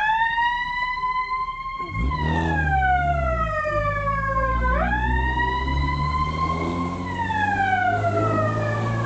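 Fire-response vehicle's siren wailing: the pitch sweeps up quickly, holds, then slides slowly down over a few seconds, twice. A vehicle engine runs underneath from about two seconds in.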